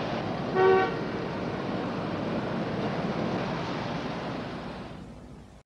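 Steady rushing background noise, with a brief tone about half a second in. The noise fades away near the end.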